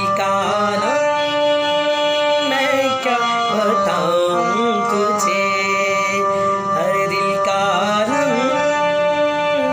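A man singing an old Hindi film love song live, with sustained chords played on an electronic keyboard underneath the melodic, gliding vocal line.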